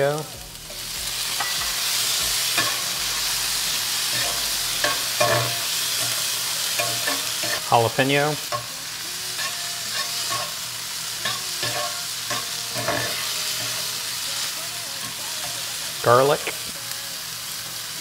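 Diced tomato, jalapeño and garlic sizzling in butter in a hot cast-iron skillet, with a metal spatula scraping and stirring across the pan. The sizzle swells about a second in, as the tomato goes into the pan.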